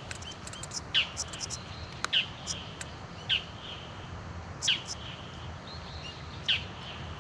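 Small birds calling: short, high chirps that slide downward, about one every second or so, with brief higher notes between them, over a steady low outdoor rumble.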